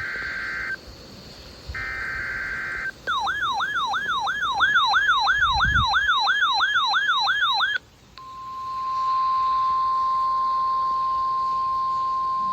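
NOAA Weather Radio alert sequence. It opens with two short buzzy digital bursts of the SAME data header. Then comes about four and a half seconds of a fast up-and-down electronic siren warble, about two and a half sweeps a second. About eight seconds in, the steady 1050 Hz warning alarm tone begins and holds on.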